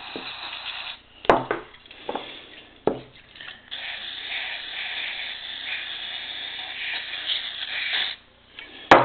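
Aerosol spray cleaner hissing into the passages of a moped carburettor, flushing out dirt: a short burst, a few sharp clicks and knocks of handling, then one steady spray of about four seconds that cuts off, and a loud click near the end.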